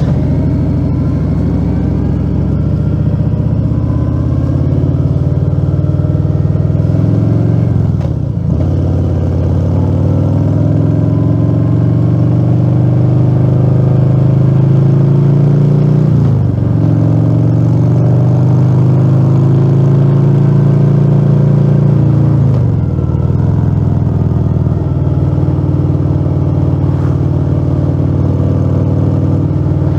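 Harley-Davidson Fat Bob 114's Milwaukee-Eight V-twin running through a Rinehart slip-on exhaust with the dB killer removed, under way on the road. The engine note climbs steadily, then drops sharply at each of three upshifts, about 8, 16 and 23 seconds in.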